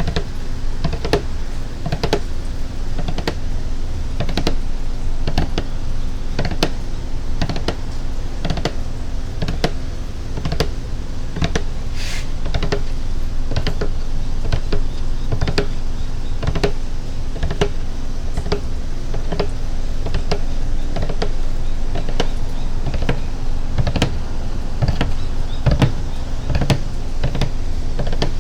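Tapping on a water container: a long run of short, crisp taps at an irregular pace, roughly one to three a second, over a steady low background rumble.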